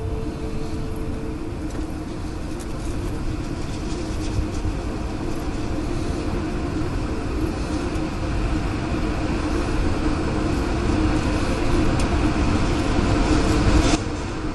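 Tornado wind on the camera microphone: a continuous low rumble with a hiss of wind, slowly growing louder and cutting off abruptly near the end.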